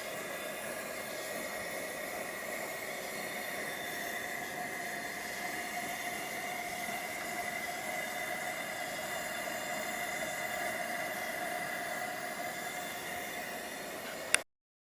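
Coleman 424 dual fuel camping stove's pressurised burner running on petrol: a steady hiss with a faint whistle in it. Near the end there is a sharp click and the sound cuts off.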